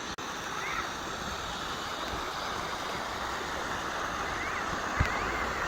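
Valley stream water rushing steadily, with a short knock about five seconds in.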